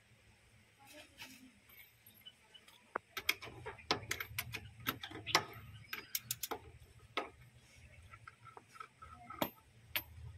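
Ratchet wrench clicking in short irregular runs as a socket unscrews a valve cap on a pressure washer's brass plunger-pump head, with small metallic clinks.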